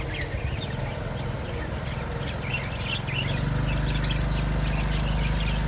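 Pet lovebirds chirping and chattering in quick, short calls, over a steady low hum that grows louder about halfway through.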